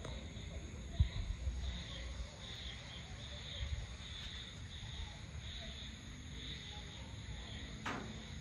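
Dusk insect chorus: high chirping pulsing about twice a second over a steady high trill, with a low rumble underneath. There is a small knock about a second in and a sharp click just before the end.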